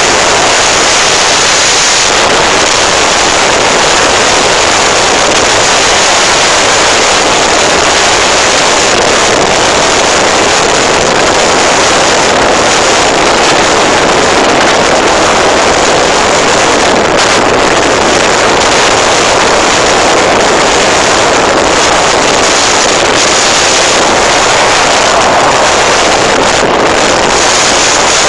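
Loud, steady rush of strong wind blasting the microphone, mixed with rough sea and spray breaking over the bow of a car ferry.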